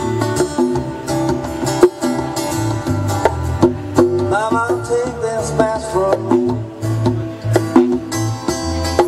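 Live acoustic band music: a strummed acoustic guitar and a hand-played djembe keep a steady rhythm, with a sliding melody line on top from about four seconds in.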